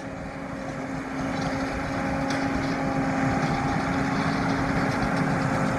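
New Holland T7 245 tractor running steadily as it works a round baler. It grows louder over the first couple of seconds, as if drawing nearer, then holds steady.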